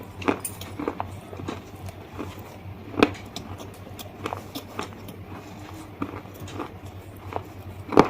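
Close-miked biting and chewing of something hard and brittle: a run of small crunches and cracks, with a loud snapping bite about three seconds in and another near the end. A faint steady hum sits underneath.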